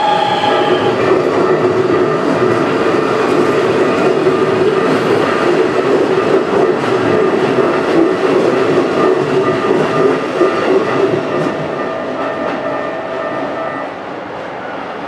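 Keikyu electric train running past, with wheels on the rails and a steady mix of held tones over the running noise. The noise drops away about fourteen seconds in.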